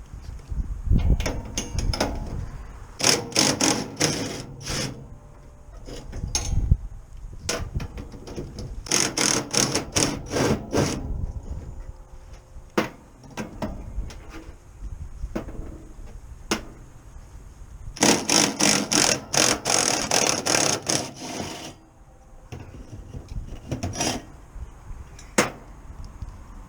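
Hammering in quick bursts of sharp blows, with pauses and a few single strikes between the bursts.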